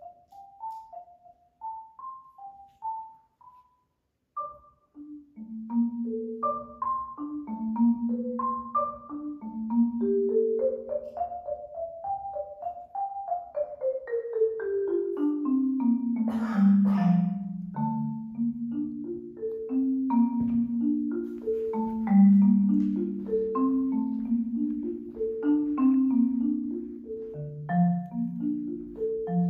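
Solo marimba played with four mallets: slow, ringing single notes climb at first, then repeating low notes sound under an upper line. About halfway through a long descending run falls into the low register, with a brief noise as it lands.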